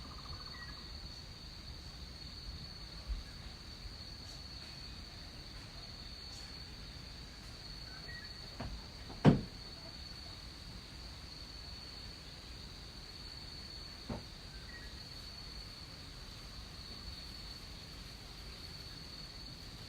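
Rainforest insects keeping up a steady high-pitched chorus, with a few faint short chirps and several dull knocks, the loudest about nine seconds in.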